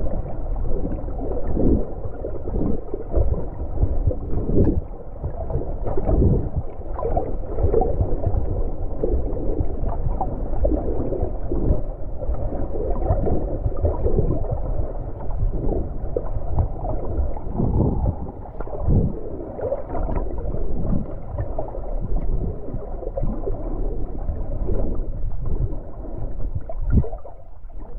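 Muffled water sloshing and gurgling heard through an underwater camera held just below the surface, with irregular low thumps throughout.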